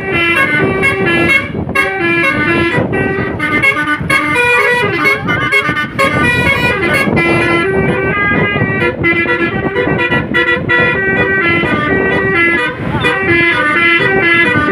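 Telolet horn, a multi-tone musical vehicle horn, playing a tune of quick stepped notes that repeats over and over, over a rumbling vehicle and wind noise.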